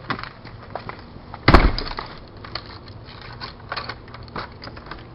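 A loud bang about a second and a half in, among lighter clicks and knocks.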